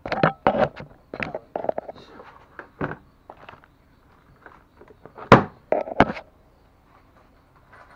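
Tools being handled at a bicycle repair bench: an irregular run of clinks and knocks, with two sharp metallic strikes about five and six seconds in.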